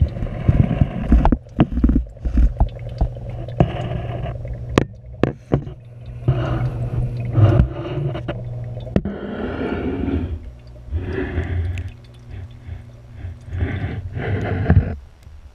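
Aquarium water heard through an underwater camera housing: uneven gurgling and sloshing with sharp knocks and scrapes as the housing touches the tank decorations, over a steady low hum.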